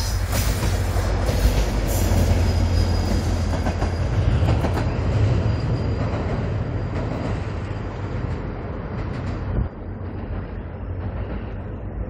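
Korail diesel-electric locomotive passing and pulling away at speed, its engine a deep steady drone under rail and wheel noise, with a few sharp wheel clicks over rail joints in the first two seconds. It fades as the train recedes.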